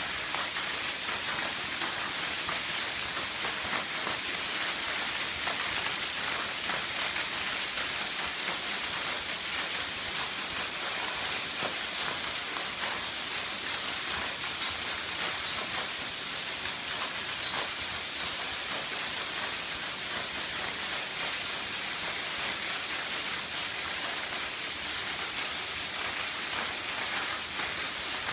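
Water pouring down a two-tier waterfall about 28 m high, a steady unbroken rush of falling water.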